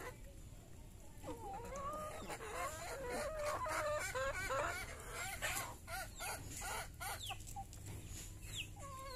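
A flock of brown hens clucking as they feed. Many calls overlap thickly for the first few seconds, then thin out, with a few short sharp taps in the middle and some quick falling high calls near the end.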